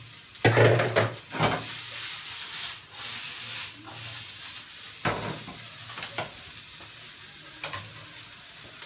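Food sizzling in a pan, broken by knocks and scrapes of a utensil stirring it, a cluster of them in the first second and a half and a few more later.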